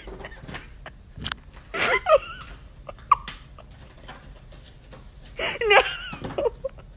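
A person's voice in short exclamations, ending in a shouted 'No!' near the end, with a couple of sharp clicks in between.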